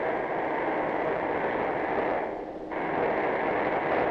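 Hydraulic riveter closing red-hot rivets on a locomotive boiler casing: a steady rushing noise that breaks off briefly a little after two seconds in, then starts again.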